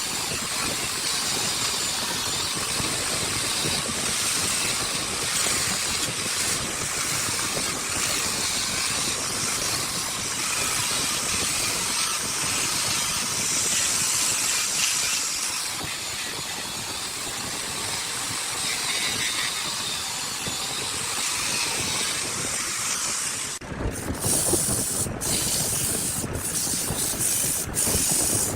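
A steady, loud hiss, like an air jet or a power tool working wood. It changes abruptly near the end and then breaks off briefly several times.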